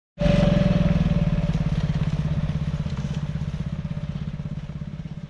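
Engine of an orange off-road UTV buggy running with a fast, even pulse. It cuts in suddenly just after the start, then slowly fades as the buggy drives away.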